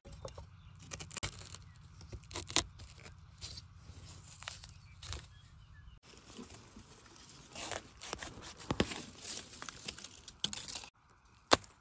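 Dry leaf litter and burnt debris rustling and crackling as they are disturbed, in short irregular snaps, with one sharp click near the end.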